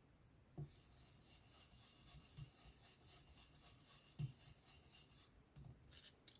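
Faint, steady rubbing of a paintbrush stroking blue ink lightly across cardstock, with a couple of soft knocks, about half a second in and near four seconds.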